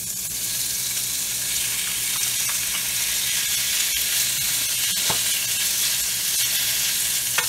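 Raw beef sirloin pieces sizzling in hot olive oil in a preheated cast iron pan, the sizzle swelling as the meat goes in, while a wooden spatula stirs them with a few light knocks against the pan.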